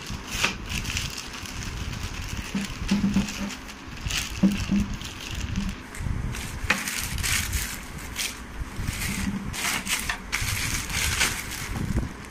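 Thin plastic packaging crinkling and rustling in irregular handfuls as a backpack is pulled out of a courier poly mailer and its clear plastic bag, with dull handling bumps underneath.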